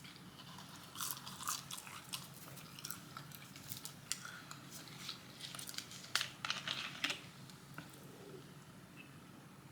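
Close-up eating sounds: crunchy bites into crispy fried chicken tenders and chewing, with many crisp crackles, thickest about six to seven seconds in, then quieter chewing.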